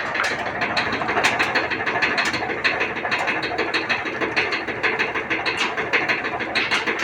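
Maytag commercial clothes dryer running with a very loud, rapid, irregular thumping and knocking over the steady hum of the tumbling drum. The owner believes the drum rollers have gone bad.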